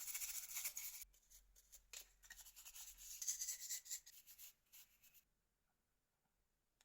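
Faint scratchy rubbing and scraping of small plastic phone parts, with light clicks, as a camera cover is worked off a Nokia 6303ci's housing by hand. It comes in two stretches, then stops a little before the end.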